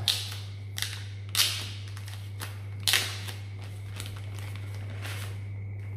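Thin plastic wrapping crinkling and crackling in the hands as it is pulled off a drone remote controller, in a string of sharp rustles, loudest about a second and a half and about three seconds in. A steady low hum runs underneath.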